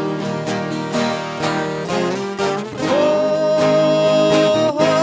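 Viola caipira playing a moda de viola with plucked strings. About three seconds in, a long held sung note comes in over it and wavers near the end.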